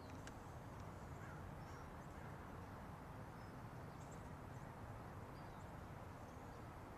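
Faint outdoor ambience: a steady low background noise with scattered short, high bird chirps.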